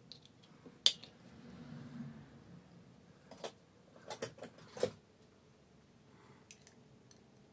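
Eggshells and small glass bowls being handled as eggs are opened: a sharp tap about a second in, then a quick run of light clicks and clinks of shell on glass a little past the middle.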